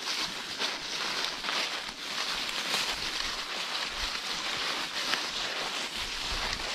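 Footsteps crunching and rustling through dry fallen leaves as people walk downhill, irregular crackles over a steady high hiss, with a few low rumbles of wind on the microphone near the end.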